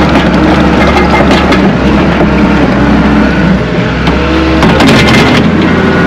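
Skid steer engine running under load, with its hydraulics working, as the machine pushes dirt with its bucket, heard from inside the cab. About five seconds in, the engine note shifts as the bucket is lifted.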